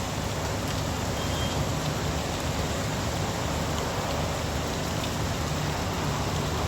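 Steady heavy rain hiss, with a steady low rumble underneath.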